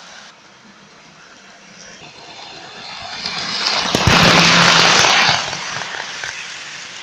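Toy electric train running past close by, its motor and wheels on the track rising to a loud rush with a low hum for about a second, then falling away.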